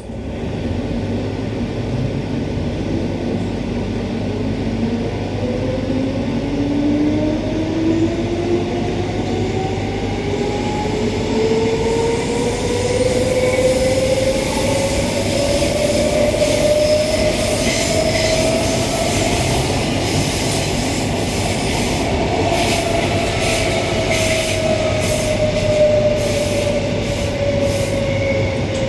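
Interior of a 1979-era Queensland Rail electric multiple unit on the move: the ASEA traction motors give a whine that rises steadily in pitch as the train accelerates, then holds and eases down slightly near the end, over a steady rumble of wheels and running gear. In the second half the wheels click over rail joints.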